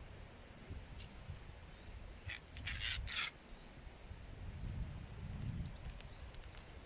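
Hands rustling a solid PVA bag of carp bait as it is twisted and tied closed, in two short bursts about three seconds in, over a low wind rumble on the microphone.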